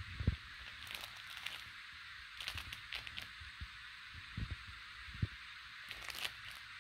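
Cat wrestling a plush catnip carrot kicker toy: scattered soft thumps and brief rustles of paws, fur and fabric against the rug and floor.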